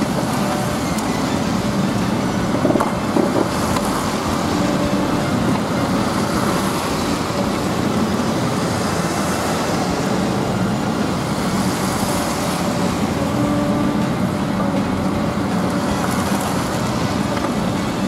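Long-reach demolition excavator running steadily as its jaws work at a concrete wall, with a pitched whine that comes and goes and a couple of sharp knocks about three seconds in.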